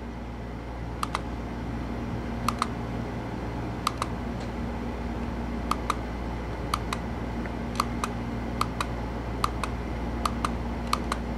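Push buttons on a Hobbywing LCD ESC program box clicking as they are pressed to step through menu settings, mostly in quick double clicks about once a second, over a steady low hum.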